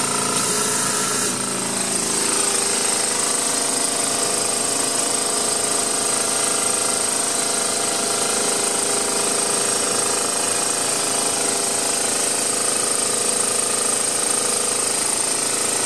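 Small homemade steam engine running at full throttle on steam at about 20 psi, a steady rapid chatter.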